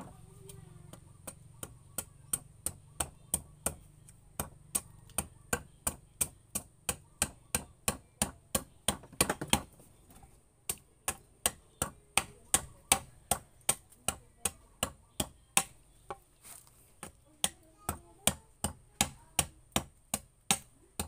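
A bolo knife chopping into a wooden paddle blank in quick, even strokes, about three a second, hewing the paddle blade thinner. The strokes break off briefly about ten seconds in, then carry on.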